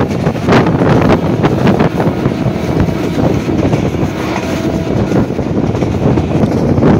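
Passenger train running at speed, heard from aboard the coach: a steady rumble of wheels on the rails with frequent rattles and clacks, and wind buffeting the microphone.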